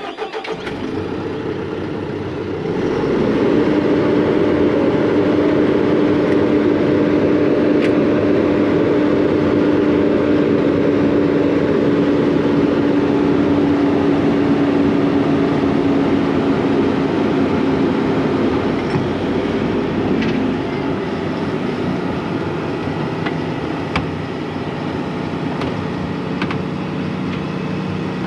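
Volvo excavator's diesel engine running, throttled up about three seconds in to a steady drone as the machine is driven off its trailer, then easing to a lower pitch near the end. A single sharp knock is heard late on.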